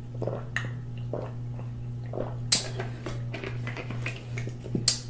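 Drinking from a small plastic bottle: soft repeated swallowing gulps, then two sharp clicks as the bottle and cap are handled, over a steady low electrical hum.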